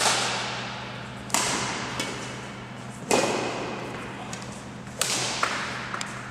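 Badminton racket hitting a shuttlecock: four sharp cracks about one and a half to two seconds apart, each ringing out in the echo of a large sports hall, with a few lighter taps between them. A faint steady hum runs underneath.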